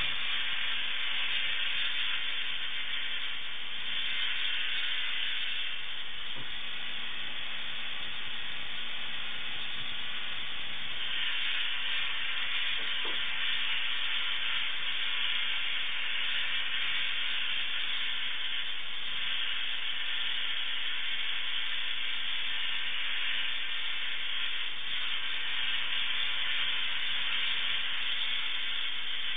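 Spark-gap Tesla coil built from a 1920s diathermy (electrocautery) machine running continuously: a steady hiss from its firing spark gap and the streamers off the top terminal.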